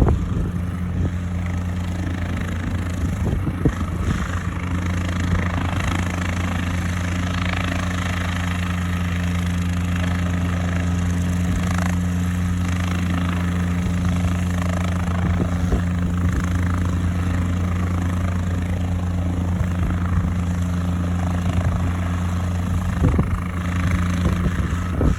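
Cabri G2 helicopter running steadily, a constant low hum from its piston engine and rotors with no change in pitch.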